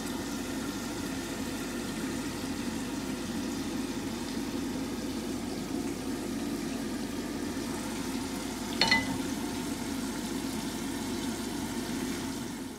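A steady low hum, with a single sharp clink of the metal pan against the ceramic plate about nine seconds in, as stir-fried snow peas are pushed out of the pan with a wooden spatula.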